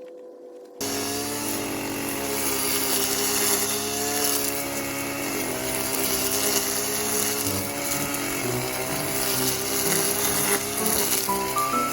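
Engine-driven brush cutter running steadily at high speed, cutting in abruptly just under a second in.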